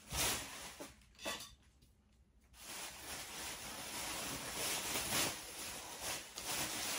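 Rustling and handling noises with a few light knocks, as items are picked up and moved about on a table. A brief hush about a second and a half in.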